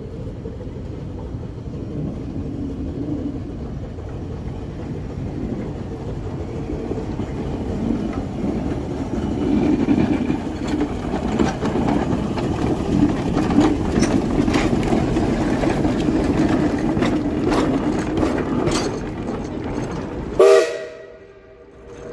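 Shay geared steam locomotive running past: a steady rumble with scattered sharp clanks and knocks, growing louder through the middle. Near the end comes a short whistle-like tone, then the sound cuts off abruptly.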